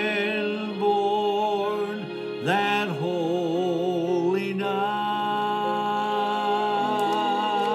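A man singing a slow Christmas hymn, holding long notes with a wide vibrato over a recorded accompaniment, moving to new notes twice.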